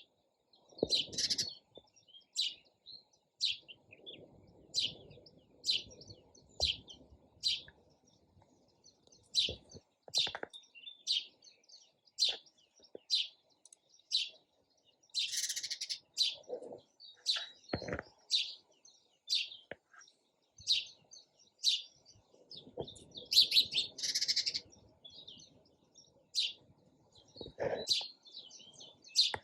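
Sparrows chirping: a run of short, high chirps repeating about once a second, with a few denser bursts of overlapping chirps.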